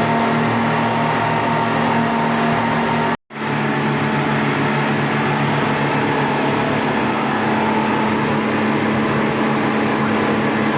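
Speedboat's engines running steadily under way, with rushing wind and water noise; the sound breaks off briefly about three seconds in.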